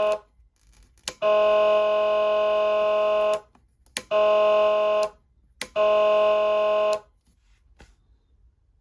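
Whelen ALPHA siren amplifier sounding a steady, buzzy tone in three blasts, the first about two seconds long and the next two about a second each, as the end of an earlier blast cuts off just at the start. A sharp click comes just before each blast.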